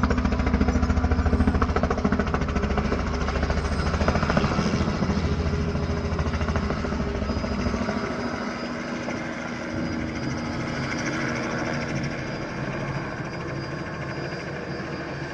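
Robinson R66 turbine helicopter running close by, with its main rotor's fast, even chop. The deep thudding drops away about eight seconds in, leaving a quieter rush of rotor and engine noise with a faint high turbine whine.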